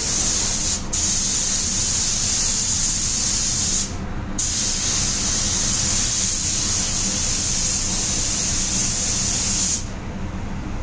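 Compressed-air paint spray gun hissing steadily as the final coat goes on. The trigger is let off briefly about a second in and for about half a second around four seconds in, then released near the end. The paint booth's ventilation hums steadily underneath.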